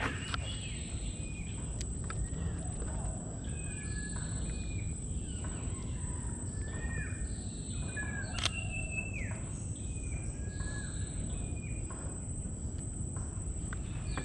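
Wild birds calling over and over with short, falling whistled notes, over a steady low rumble and a thin, steady high-pitched whine.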